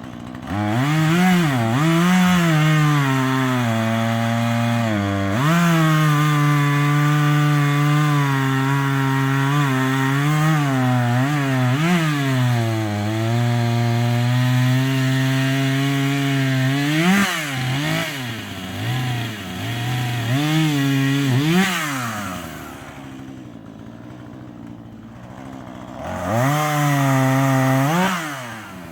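Husqvarna 440e two-stroke chainsaw revving up and cutting through wood, its engine pitch dropping and holding steady under load for several seconds at a time, with quick revs between cuts. It drops to idle about three-quarters of the way through and is revved once more near the end.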